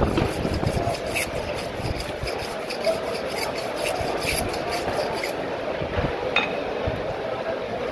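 A knife rasping and scraping in quick repeated strokes for about five seconds, as it works on a large tuna, then a few separate knocks.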